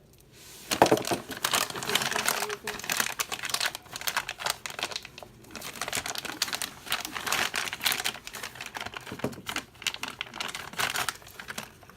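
Packaging being handled and unwrapped, crinkling and rustling in a dense run of crackles that starts about a second in and stops shortly before the end.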